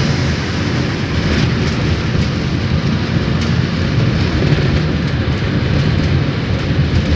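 Steady cabin noise of a vehicle driving at highway speed: a low rumble with tyre and road hiss, unbroken throughout.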